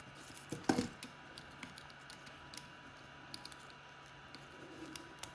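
A few light clicks and taps of hands and small tools on small drone parts, with one sharper click just under a second in.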